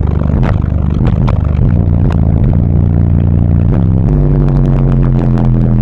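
Bass-heavy music played very loud through a competition car-audio system of four Crescendo Contralto 15-inch subwoofers, heard from inside the car's cabin. Deep bass notes are held for long stretches and shift to a new pitch about four seconds in, with many sharp clicks over the top.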